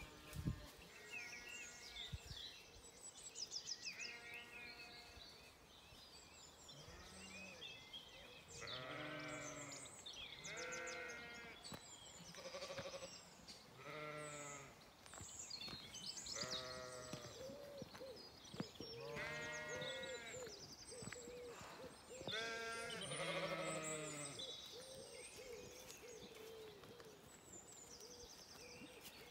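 A flock of Zwartbles ewes and lambs bleating over and over, many calls overlapping, some deep and some higher-pitched.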